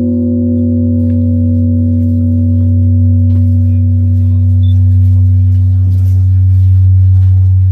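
Large Korean Buddhist temple bell (beomjong) ringing on after a strike, a deep low hum with fainter higher tones that fade away. The hum slowly swells and ebbs.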